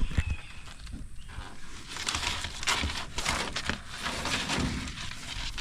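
White-throated monitor lizard feeding: a run of short, scratchy rustling and crunching sounds as it grabs at its food.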